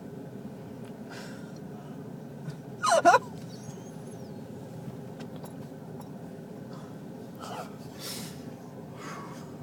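A man's single loud hiccup about three seconds in, with a short, voiced, wavering yelp to it. A few softer breathy noises follow near the end.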